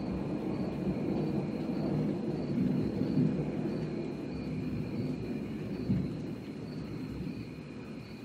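Long rolling rumble of distant thunder, slowly dying away.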